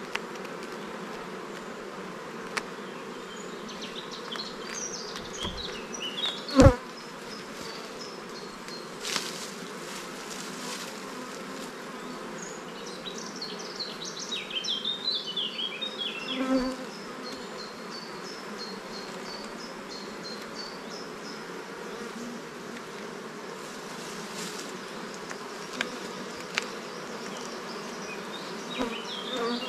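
Honeybees buzzing steadily around an opened hive, with one sharp knock about seven seconds in.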